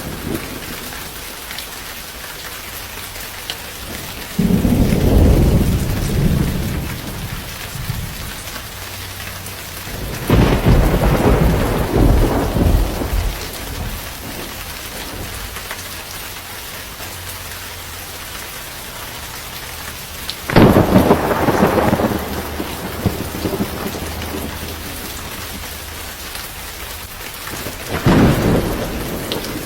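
Steady rain with four rolls of thunder, each rumbling for two to three seconds and louder than the rain, the first about four seconds in and the last near the end.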